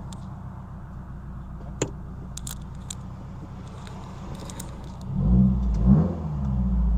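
Subaru WRX's turbocharged flat-four engine running steadily with a few sharp ticks, then revving up about five seconds in, its pitch rising and falling as the car pulls away. This is a test drive on a newly replaced rear axle, listening for clicking, which the driver then decides is not there.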